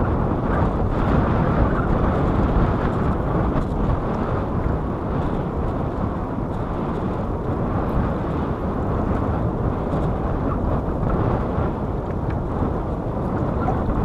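Steady wind blowing across the microphone, a low, even rumble with no letup.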